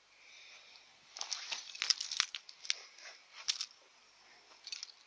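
Footsteps crunching through dry grass and fallen leaves, heard as a run of irregular crackles and crunches from about a second in, with a couple more near the end.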